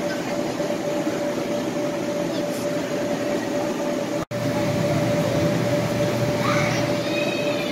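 Steady drone of the electric blower fans that keep inflatable bounce slides inflated, a constant rushing hum with one steady tone in it, with children's voices faintly near the end.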